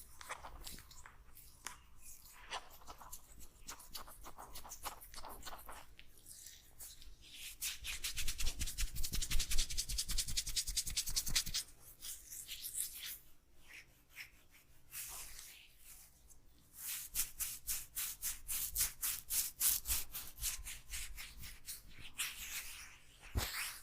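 Hands rubbing and kneading an oiled scalp and hair. There are two stretches of quick, rhythmic strokes, the first the loudest, and a single sharp click near the end.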